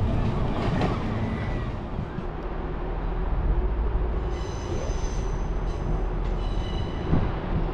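Train running with a steady low rumble, with a high-pitched metallic squeal from the wheels or brakes about four seconds in and again briefly near the end.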